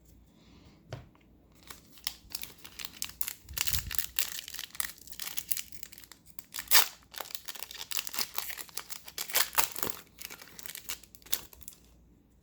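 Foil booster pack wrapper being torn open and crinkled by hand: a run of irregular crinkling and tearing, with one louder crackle about halfway through.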